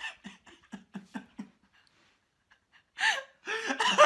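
People laughing: a quick run of short, breathy laughs, then after a pause a louder burst of gasping laughter near the end.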